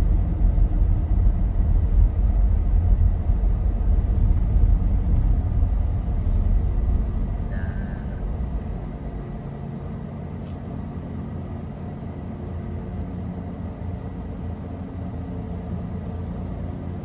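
Road and engine noise heard inside a moving car's cabin, a strong low rumble that eases off about halfway through as the car slows to a stop, leaving a quieter steady idle hum.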